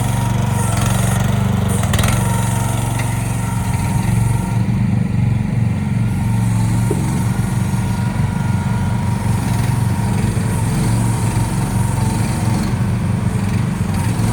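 Small 420 cc gasoline engine of a CFG Industrial H12R mini excavator running steadily, with a sharp click about two seconds in.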